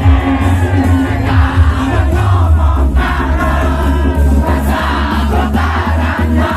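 Loud music with a group of voices singing over a heavy, deep bass.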